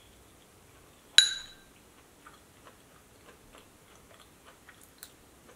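A metal spoon clinks once against a ceramic bowl about a second in, ringing briefly, followed by soft chewing and small wet mouth clicks as food is eaten.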